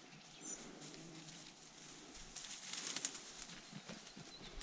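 Faint bird calls, with a short high chirp about half a second in, and a soft rustling hiss with small clicks around the middle.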